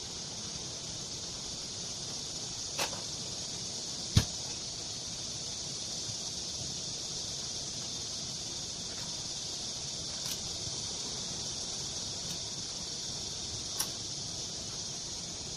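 A few sharp metal clicks and knocks as parts of a Honda GX35 four-stroke trimmer engine are fitted together by hand, the loudest about four seconds in, over a steady high hiss.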